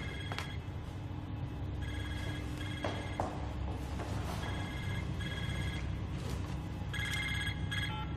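Mobile phone ringing with short electronic rings, mostly in pairs, repeating every couple of seconds; the rings stop just before the end. A steady low hum lies underneath.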